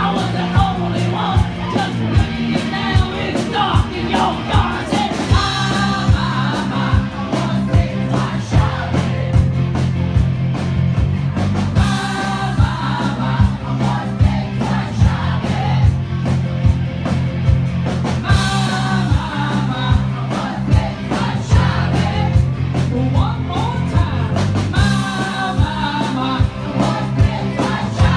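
Live rock band playing: a drum kit keeps a steady beat under keyboard and low sustained notes, with a singer coming in and out.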